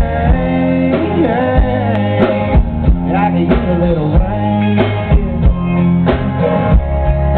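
Country band playing a song live, with guitars, bass and drum kit under a male lead vocal. The sound is dull, with little treble.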